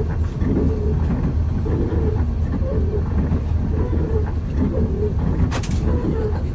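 Bus engine idling with a steady low drone, heard from inside the cabin, with a single sharp click about five and a half seconds in.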